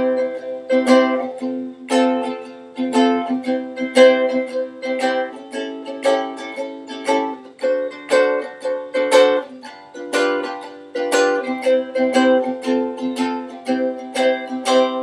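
Ukulele strummed in a steady down-up pattern with the accent on beats 2 and 4, changing chord about every two seconds through the piece's chord progression.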